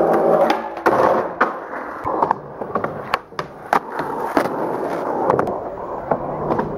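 Skateboard wheels rolling on a concrete park surface, with repeated sharp clacks of the board and trucks hitting the ground.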